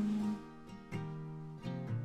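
Background music: acoustic guitar playing sustained plucked notes.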